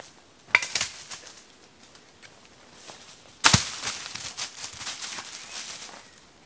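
A person's footsteps and a Belgian Malinois running through dry leaf litter. There are a few crackling steps about half a second in, then a loud rustling scramble starts suddenly about three and a half seconds in and lasts a couple of seconds.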